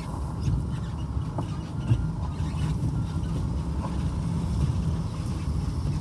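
Vehicle driving, a steady low engine and road rumble, with a single knock about two seconds in.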